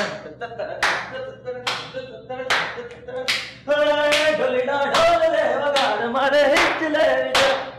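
Steady Garba hand claps (taali), about one clap a second, with a voice counting the beat as 'dhin-ta-titad'. About four seconds in, a man starts singing a Garba song unaccompanied over the clapping, and it breaks off suddenly near the end.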